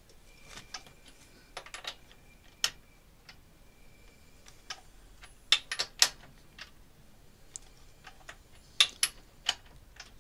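Scattered sharp metallic clicks and taps as the BMW K1600's crankshaft is turned over by hand with a spanner, bringing cylinder 2 to top dead centre for a valve clearance check. The clicks come in clusters, loudest about halfway through and again near the end.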